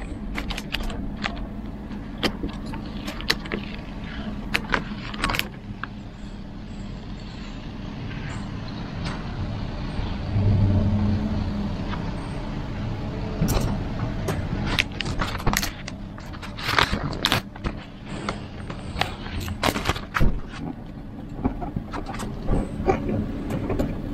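Adhesive vinyl advertising sticker being peeled by hand off a car's painted body, with scattered crackles and clicks, over a steady low vehicle rumble. A louder low hum swells briefly about ten seconds in.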